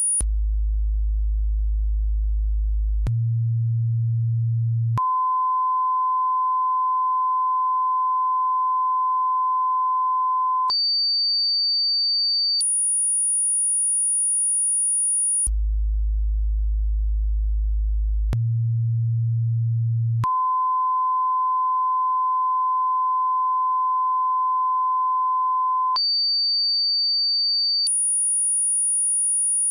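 A cycling sequence of steady electronic test tones. A very low hum runs for about three seconds, then a slightly higher low tone, then a long mid-pitched beep of about six seconds, then a high whistle and a very high whistle. The cycle starts over about every fifteen seconds, so it plays roughly twice.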